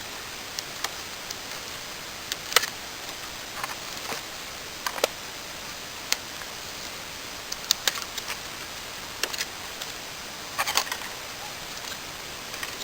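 Scattered small clicks, taps and scrapes of close-up hand work with small hard objects, over a steady hiss. A short cluster of them comes near the end.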